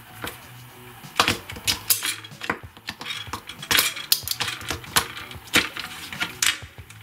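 Irregular small clicks and metallic clinks of two 1.5 V batteries being handled and pressed into the plastic battery holder of a smoke detector.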